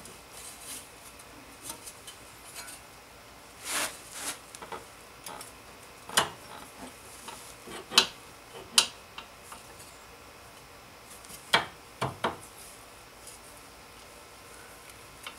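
Metal parts clinking and scraping as an outer tie rod end and wrench are worked into line with the steering knuckle: about seven separate sharp clinks spread out, with a short scrape a little before the middle.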